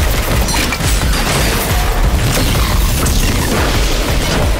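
Cinematic soundtrack of an animated action film: music under a dense run of booms, crashes and blast effects, heavy in the low end.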